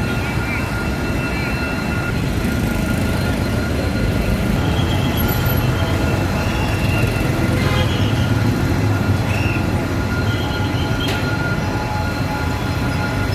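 Vietnam Railways passenger train SQN2 rolling past, a steady loud rumble of wheels on the rails. Short high-pitched tones come and go over it, with one sharp click about eleven seconds in.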